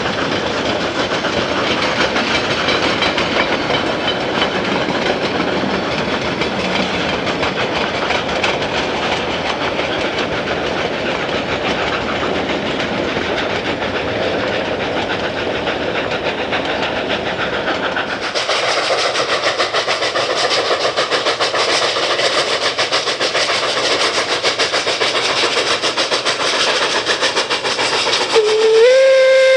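3-foot narrow gauge freight cars rolling steadily past. After an abrupt change about two-thirds of the way in, a steady hiss. Near the end a steam locomotive whistle opens: one tone that bends up and then holds.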